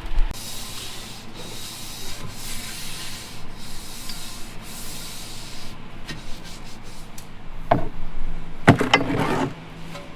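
A finishing tool scraped across wet concrete in about five long, hissing strokes, followed near the end by a knock and a louder clattering scrape.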